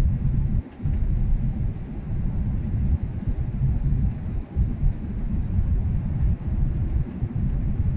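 Cabin noise of an airliner on final approach with flaps extended, heard from a window seat over the wing: a low rumble of engines and airflow that flutters in level.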